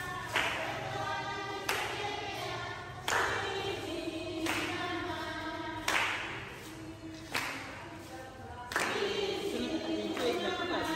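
A group of women singing together in a hall and clapping in time, the claps landing together about every second and a half.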